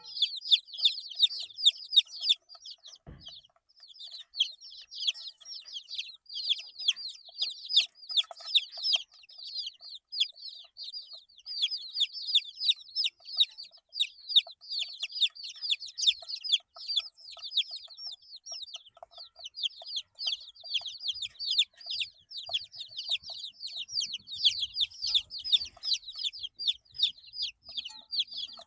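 A group of eight-day-old chicks peeping almost without pause: many short, high peeps, each falling in pitch, overlapping one another, with a few brief lulls.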